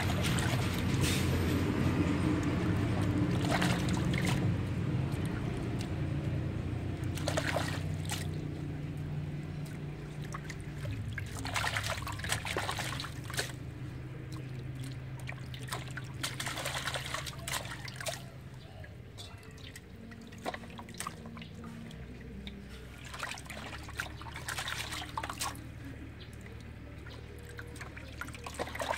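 Hands swishing lettuce leaves through water in a metal basin, with repeated splashes and trickling drips as leaves are lifted out and shaken. The splashing is busiest in the first few seconds and again late on.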